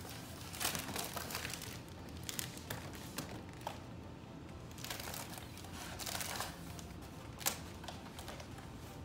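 Shiny cat-shaped party balloon crinkling and rustling as it is turned over and squeezed in the hands, with irregular sharp crackles and taps.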